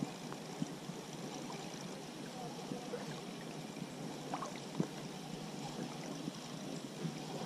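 Spinning reel being cranked during a lure retrieve: a steady soft whirr with a few faint clicks scattered through it.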